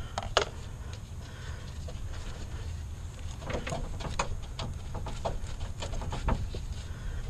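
Light metallic clicks and scrapes of needle-nose pliers and a spring hose clamp on a car's radiator top hose. One sharper click comes about half a second in, and a run of quicker clicks about halfway through, over a steady low rumble.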